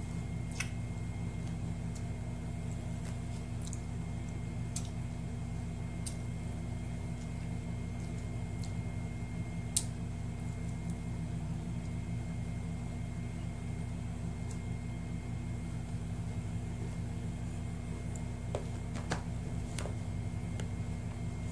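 Steady low hum of a running household appliance or fan, with a few faint clicks from the plate as a meal is eaten by hand.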